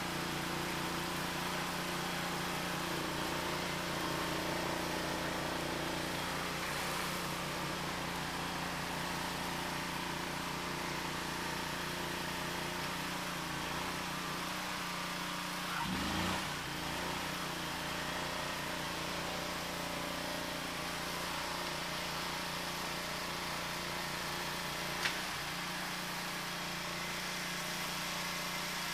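ELIET Snowbob 9018T snow blower engine running steadily. About halfway through, the engine note briefly swells and bends in pitch, and near the end there is a single sharp click.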